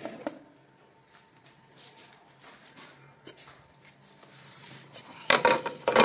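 Hard plastic parts of a water dispenser's top being handled. It is mostly quiet with a few faint clicks, then near the end comes a loud run of plastic knocks and rattles as the blue bottle seat is set into place.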